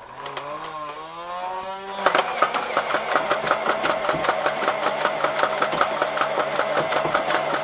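Boomco Colossal Blitz motorized dart blaster revving up, its motor whine rising for about two seconds. It then fires full auto: a fast, even rattle of shots over the running motor.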